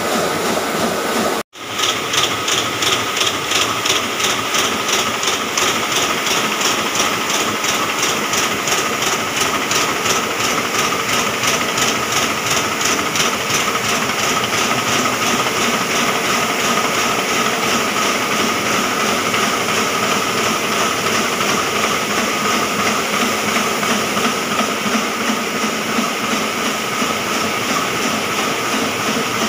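Multi-colour sheet-fed offset printing press running at speed: a steady mechanical din with a rapid, even clatter. It cuts out for an instant about a second and a half in.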